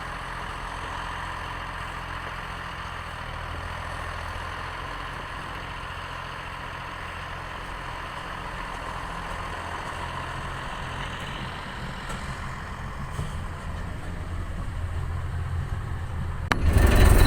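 Engine of a small railway maintenance speeder running steadily at idle, growing a little louder toward the end; a sudden much louder, rougher noise starts near the end.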